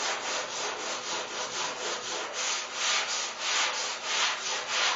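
Sandpaper on a long flexible sanding board scraping back and forth across a car hood in quick, even strokes as the panel is block sanded.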